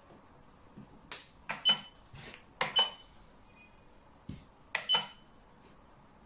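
Xiangqi pieces being set down on the board with sharp clacks, in three quick pairs as three moves are played. Each pair carries a short high beep.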